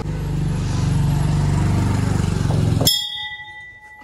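A vehicle engine running steadily, which stops abruptly about three seconds in, leaving only a faint steady hum.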